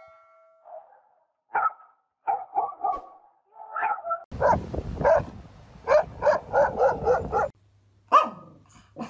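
Dog barking. A large pale dog first gives short, uneven vocal calls, then barks rapidly, about three barks a second, for some three seconds. Near the end a small Pomeranian gives a single bark that falls in pitch.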